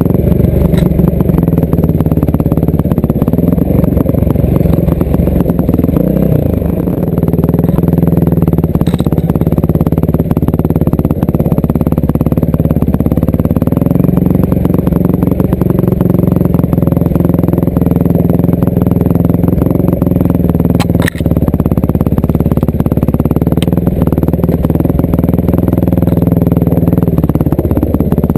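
Yamaha WR450F enduro bike's four-stroke single-cylinder engine heard onboard, running under changing throttle, its note rising and falling as the rider rolls on and off. The revs drop briefly about six seconds in, and a single sharp knock comes about 21 seconds in.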